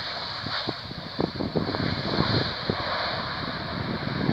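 Gusty wind buffeting the microphone: irregular low thumps from about a second in, over a steady rushing noise.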